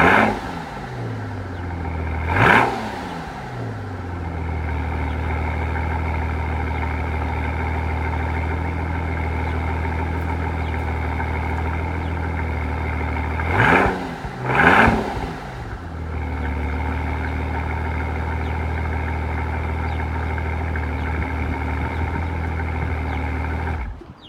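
Straight-piped 2006 Mercedes-Benz CL65 AMG twin-turbo V12 with no catalytic converters, idling just after a cold start. Four short throttle blips cut through the idle: one at the start, one about two and a half seconds in, and two close together about fourteen seconds in. The engine settles back to a steady idle each time.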